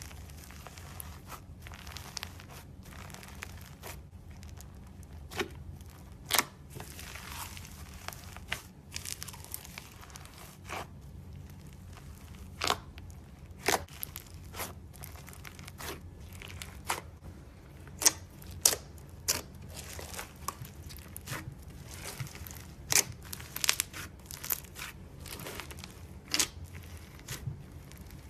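Crunchy slime being handled, giving irregular sharp crackles and pops with softer crinkling in between. A few of the pops stand out louder than the rest.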